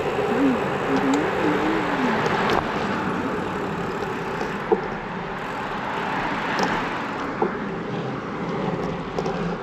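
Steady wind and wheel noise of a ride along a paved street, with a faint wavering tone in the first two seconds and a few sharp clicks in the second half.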